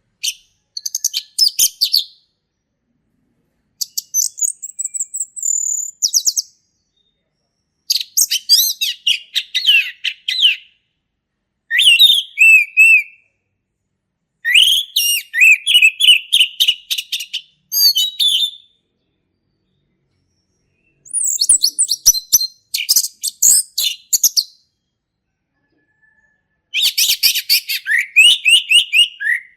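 Male orange-headed thrush singing in full song: about seven bursts of fast, varied whistled phrases, each lasting a few seconds, with short pauses between them.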